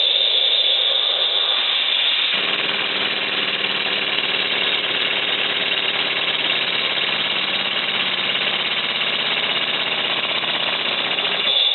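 Model double-cylinder slide-valve marine steam engine running fast and steadily, a continuous hiss with a rapid mechanical beat; about two seconds in it settles into a steady running note.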